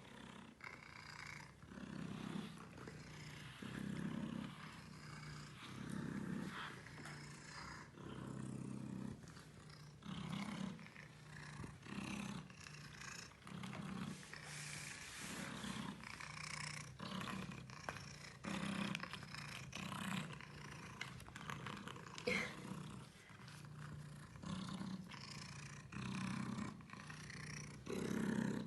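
Domestic cat purring, swelling and easing with each breath about every one and a half to two seconds.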